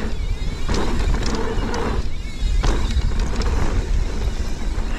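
A mountain bike ridden fast downhill: wind rushing over the camera microphone as a constant low rumble, with tyres rolling over the dirt and the bike rattling, and a few sharp clatters from bumps.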